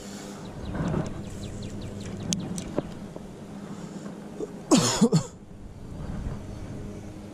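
A person coughing: two quick harsh bursts about two-thirds of the way through.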